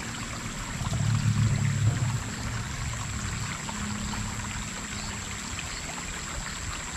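Shallow stream water running over rocks, a steady rushing trickle, with a thin steady high tone over it. A brief low rumble stands out about a second in.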